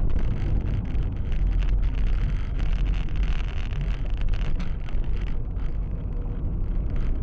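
Steady road and engine rumble of a moving car heard from inside the cabin through a dashboard camera's microphone, with wind hiss over it.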